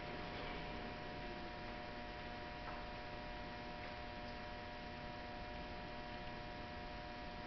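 Steady electrical hum of a few fixed tones, with a couple of faint clicks from hand work at the car's door sill.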